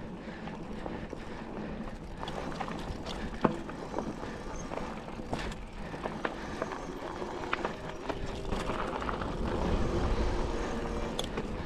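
Mountain bike ridden over a dirt trail: tyres rolling on dirt and rock, with the bike rattling in frequent sharp knocks over bumps, the loudest about three and a half seconds in. A low rumble swells near the end.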